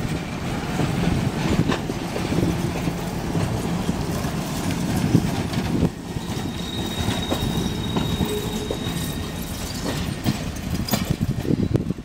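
Passenger railcars rolling past, wheels clicking over the rail joints with a steady rumble. After a brief dip about six seconds in, the rolling goes on with a faint steady high whine for about three seconds, and the clicks come quicker near the end.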